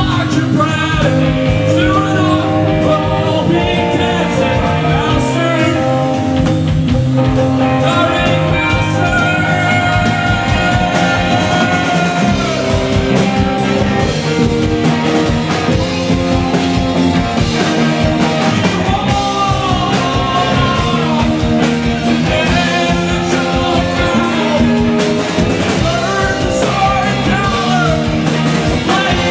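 Rock band playing live at full volume: a lead vocal sung over electric guitars, keyboard and drums with a steady beat.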